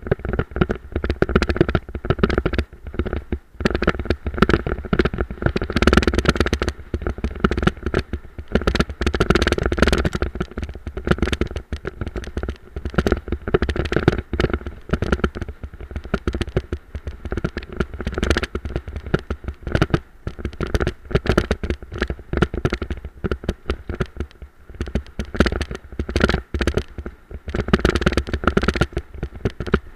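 Dryland dog cart rolling over a rough dirt trail, rattling and jolting in a dense, irregular clatter of knocks over a low rumble.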